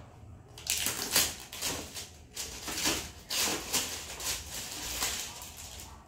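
Clear plastic packaging bag crinkling and rustling as it is pulled off a small boxed battery charger, in quick, uneven crackles that start about half a second in and die down near the end.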